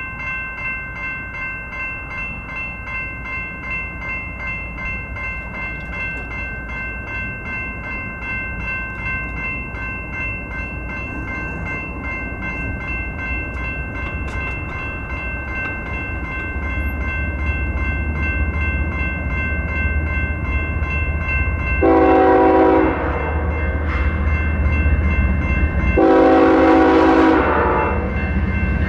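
Railroad crossing bell starts ringing with a fast, even pulse as the signals activate, while the low rumble of an approaching freight train's locomotives grows louder from about halfway through. Near the end the locomotive horn sounds twice for the crossing, a short blast and then a longer one.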